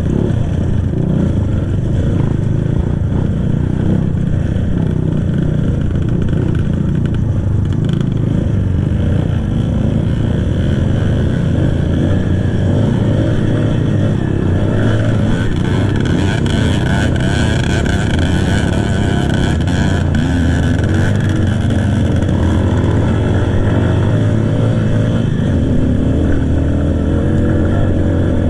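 Kawasaki KLX trail bike's single-cylinder four-stroke engine, stock exhaust, running steadily while being ridden, its revs rising and falling.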